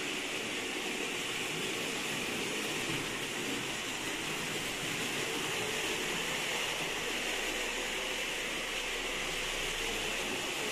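Märklin 3078 (Henschel DHG 500) model diesel shunter running under analog control, pulling four tank wagons over Märklin M-track with a steady, even rolling noise.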